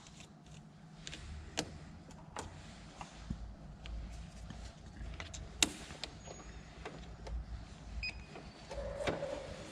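Faint scattered clicks and handling noises over a low rumble, with a brief faint tone near the end.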